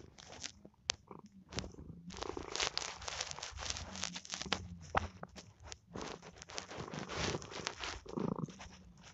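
Domestic cat purring close to the microphone, the purr swelling and fading in waves with its breathing, overlaid by frequent crackling clicks.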